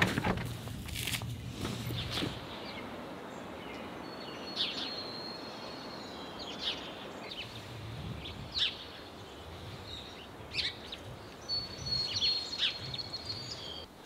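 Outdoor ambience: a steady hiss with small birds chirping now and then, short high calls every second or two. A few knocks in the first two seconds.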